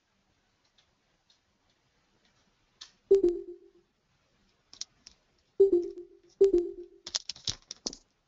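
Three sharp clicks, each followed by a short low ringing tone, then a quick run of clicks near the end.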